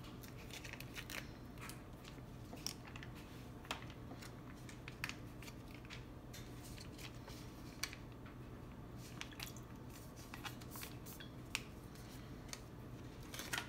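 Faint, scattered small clicks and crinkles of hands handling a small plastic packet of MCT oil, over a low steady hum.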